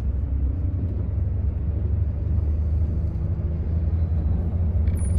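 A bus's steady low rumble of engine and road noise.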